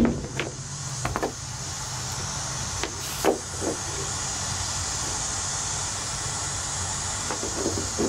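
Claw hammer striking an XLR cable connector on a wooden board, a sharp knock right at the start, then smaller knocks and clicks as the connector is picked up and handled. A steady hiss with a low hum lies under it all.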